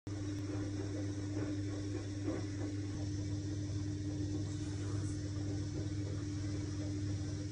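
Steady machine hum: a low drone with a constant mid-pitched tone over faint hiss, cutting in abruptly at the start and holding unchanged.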